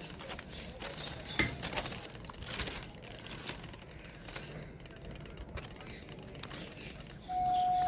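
Footsteps crunching on railway ballast stones, with scattered sharp clicks. Near the end a steady high-pitched tone starts suddenly and holds.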